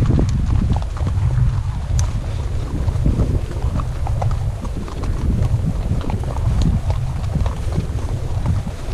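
Icelandic horses' hooves clopping irregularly on a dirt track, over a steady low rumble of wind on the microphone.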